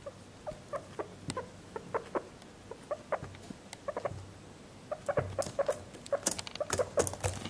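Guinea pig making short squeaks, several a second, with sharp clicks of its claws on a laptop keyboard becoming frequent in the last few seconds.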